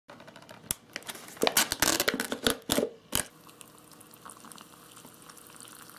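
Paper-and-foil lid of an instant noodle cup being peeled back: a run of crinkles and sharp tearing clicks over about the first three seconds. Then hot water poured from a kettle into the cup, a faint steady trickle.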